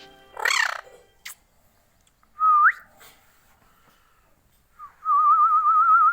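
Indian ringneck parakeet calling and whistling: a short rasping call, then a brief whistle that swoops upward, then a long warbling whistle near the end.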